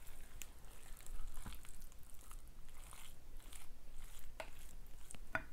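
Wooden spoon mixing sticky curry rice in a glass bowl: soft scraping, with irregular sharp clicks of the spoon against the glass.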